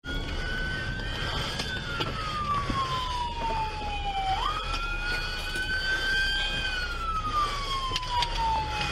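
Police car siren in a slow wail: the pitch jumps up quickly, then falls slowly over about three seconds, and the cycle repeats twice. A steady low rumble runs underneath.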